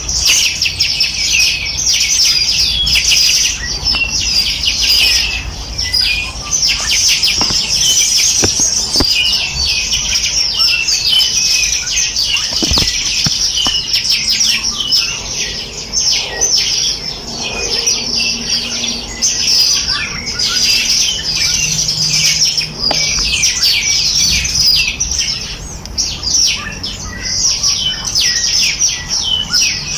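Many small birds chirping and twittering at once in a dense, continuous chorus of quick high notes.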